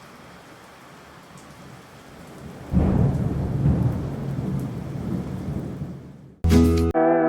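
A steady rain-like hiss, then a loud rolling rumble of thunder about three seconds in that slowly dies away. Music starts near the end.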